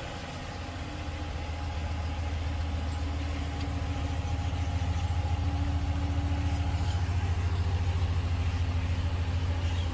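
2019 Ram 1500 Laramie pickup's engine idling steadily, a low even hum, just after being started by the key fob's remote start.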